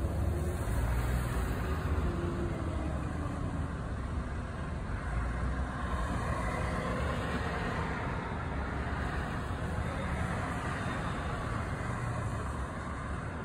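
Road traffic: cars driving past one after another on the street, a steady rumble of engines and tyre noise with a swell as a car passes about midway.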